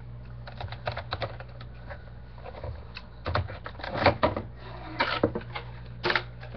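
Irregular small plastic clicks and rustles of a model-train tender and its packaging being handled and set down, over a steady low hum.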